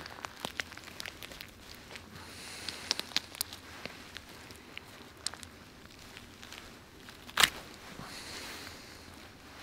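Hands handling a dead game bird, breaking its wings and pulling at feathers and skin: a scatter of small clicks, crackles and tearing sounds, with one loud sharp crack about seven seconds in.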